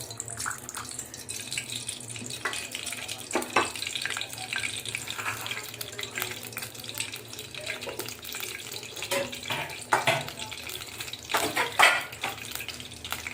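Oil heating in a kadhai on a gas stove: a steady hiss with scattered small crackles and clinks.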